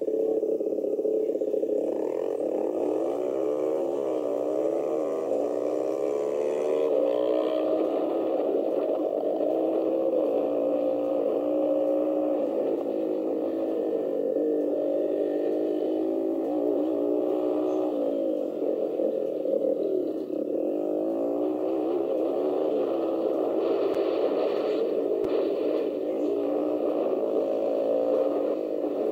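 80cc dirt bike engine revving, its pitch climbing and dropping back again and again as the bike pulls away and runs through the gears on a dirt track, heard from on board.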